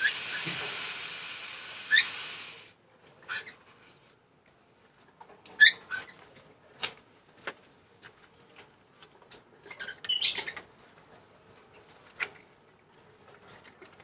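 Pet lovebirds and cockatiels in their cages giving scattered short, high chirps and squeaks a few seconds apart, with a few soft clicks in between.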